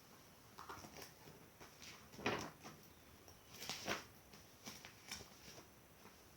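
Faint rustles and soft knocks of a picture book being handled, its cover and pages being turned, with a louder swish about two seconds in and another near four seconds.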